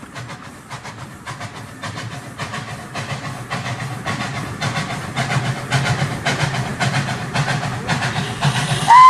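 Model steam tram locomotive and its wagons running closer: a low rumble with a stream of clicks, growing louder. Right at the end a steam whistle sounds, sliding up and then held.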